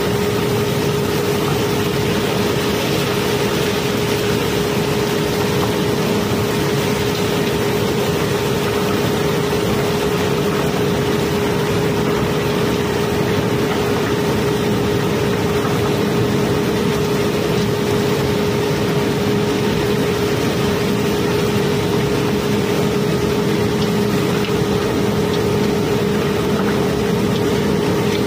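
Barge unloading conveyor carrying a steady stream of cobblestones: a continuous rattle of stones over a steady machine drone with one constant humming note.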